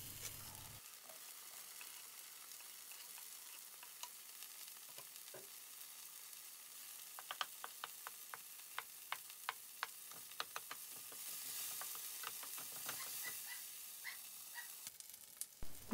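Diced Spam and chopped green onions sizzling in grape seed oil in a nonstick frying pan on high heat. A wooden spatula stirs them, with a run of light clicks against the pan in the middle, and the sizzle grows a little louder toward the end.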